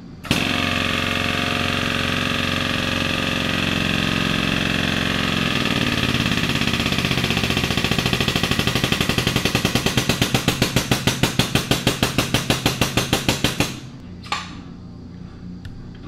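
Powered hydraulic pump driving a Parker MiniKrimp hose crimper through a crimp on a thermoplastic hose fitting. It starts suddenly and runs steadily, drops in pitch partway through as crimp pressure builds, then pulses about five times a second before cutting off suddenly near the end.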